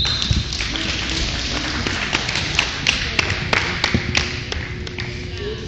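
Scattered spectators clapping in a gym as a wrestling bout ends: sharp, irregular hand claps over a general crowd murmur.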